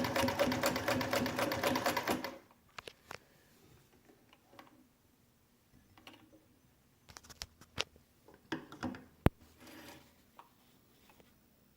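Vintage Universal domestic sewing machine running at speed, stitching through three layers of marine-grade vinyl with a fast, even needle rhythm; it stops abruptly about two seconds in. Scattered faint clicks and knocks follow, with one sharp click near the end.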